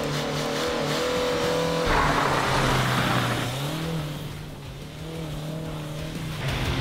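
Renault Clio engine revving, then the car pulling away hard over a dirt surface, with loose dirt and gravel spraying from the wheels from about two seconds in. The engine note rises a little before four seconds, then grows quieter as the car moves off.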